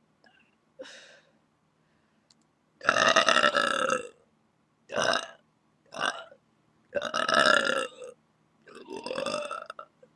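A person burping loudly, five burps in a row after a faint one at the start. The first and fourth burps are the longest and loudest; the others are short.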